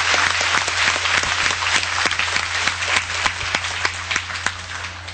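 Audience applauding, dense clapping that thins out and fades over the last couple of seconds.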